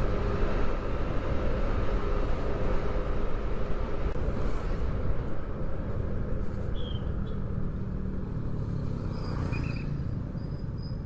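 Motorcycle on the move: a steady low engine and wind rumble, with a few short high chirps in the second half.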